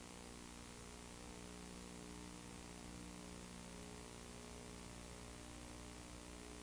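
Faint, steady hiss with a low electrical hum running under it; nothing else sounds.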